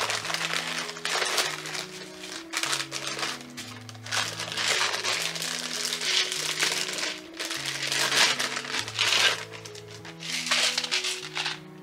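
Crinkling of packaging being unwrapped by hand, repeated rustles throughout, over background music of slow held chords.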